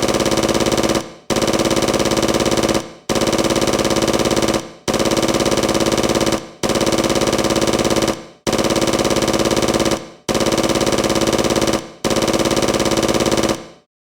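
Machine-gun sound effect: eight near-identical bursts of very rapid fire, each about a second and a half long, with short breaks between them.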